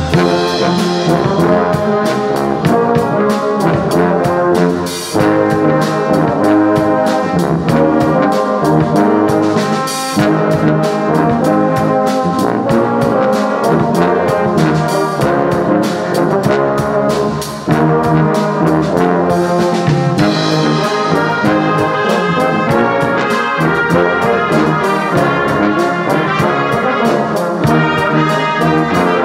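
Brass band with flutes playing a Christian hymn arrangement: trumpets, trombones, euphoniums, tubas and a sousaphone together in full harmony, with short breaks between phrases.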